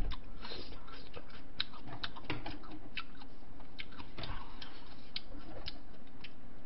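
Light, irregular clicks and taps of wooden chopsticks against bowls and a paper cup while eating, about two or three a second.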